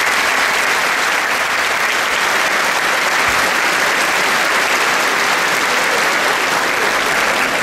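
A large crowd applauding steadily, a dense clapping at an even level.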